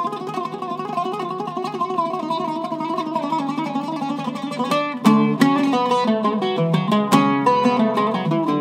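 Iraqi-style oud with a cedar top and mahogany back, plucked in a solo passage: fast, closely packed notes at first, then about five seconds in it turns louder, with distinct plucked notes in a lower register.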